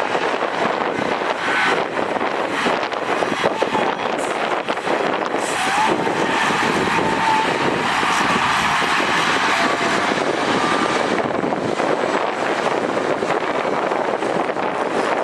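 Diesel engines of heavy earthmoving machinery running steadily, with wind noise on the microphone.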